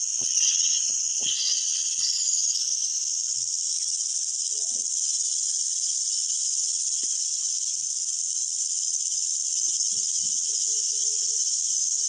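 A steady high-pitched hiss that holds at one level throughout and cuts off suddenly at the very end.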